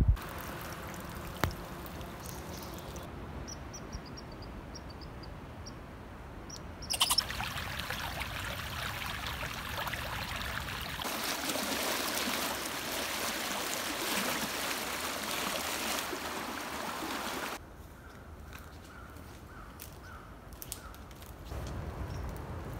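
Churning whitewater rushing steadily for several seconds in the middle, the loudest sound here. Before it, a bird gives a quick series of short high chirps over quiet outdoor ambience.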